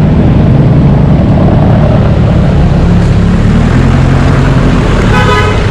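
Motorbike engine running at riding speed in city traffic, with low wind rumble on the microphone; the engine note climbs a little past the middle. Near the end a brief steady high-pitched tone sounds.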